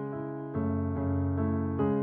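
Slow, soft electric piano music: sustained chords with a new note or chord struck about every half second.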